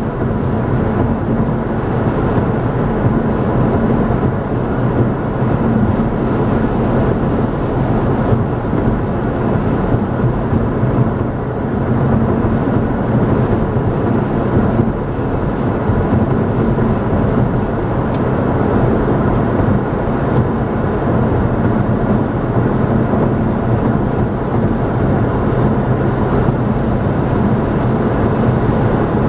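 Steady road noise of a car cruising at highway speed: tyre roar on the pavement with a low engine hum, unbroken throughout.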